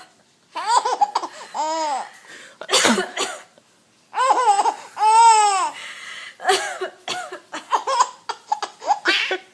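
A three-month-old baby laughing in several rounds of high, arching giggles, set off by a woman coughing. Her short coughs fall between the laughs, and the baby's longest, loudest laugh comes about halfway through.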